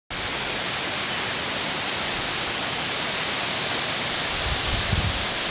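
Steady rushing roar of the Second Carbet Falls, an even hiss of falling water. About four seconds in, low rumbling bumps on the microphone join it.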